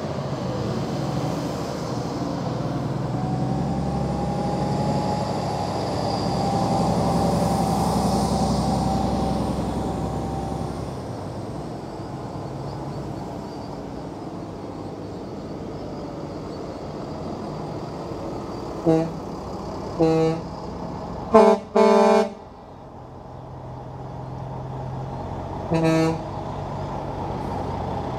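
Heavy trucks driving past with their diesel engines running, swelling as one goes by, then a string of five short truck horn blasts, two of them close together, about two-thirds of the way in and one more near the end.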